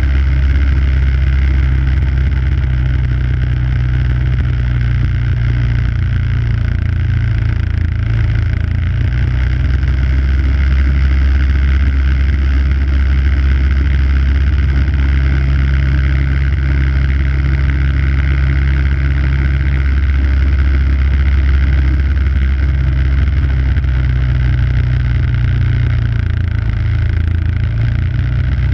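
MTD two-stage snow blower's 5 hp engine running steadily under load while it clears snow.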